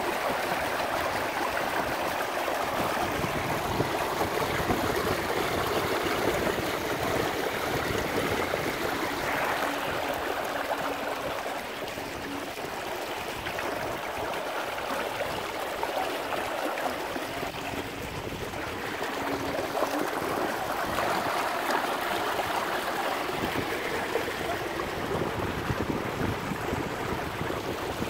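Rushing, splashing water from the wake and hull of a small boat under way. The boat is driven fast by an electric trolling motor made for 24 V and run on 36 V. It is a steady wash with no engine note of its own.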